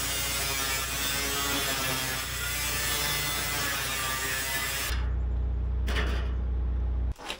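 Handheld electric angle grinder with a cutoff wheel cutting sheet steel for a floor pan patch, a loud steady hissing whine. About five seconds in the cutting stops, the hiss drops away and a lower motor sound runs on until it cuts off abruptly.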